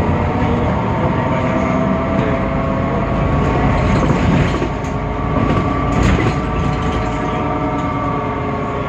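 Temsa Avenue LF city bus running: the DAF PR 228 diesel and ZF Ecolife automatic gearbox give a steady rumble with a whine of several held tones, plus a few short rattles around the middle. This is the bus's unusual drivetrain sound, unlike the normal sound of the type.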